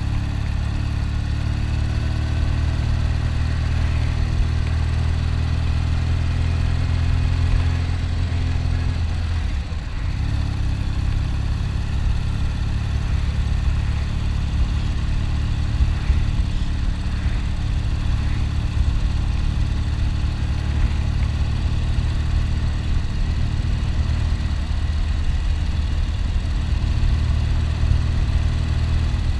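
1972 Triumph Tiger's parallel-twin engine running steadily. Its pitch creeps up over the first nine seconds, dips briefly about ten seconds in, then holds steady again.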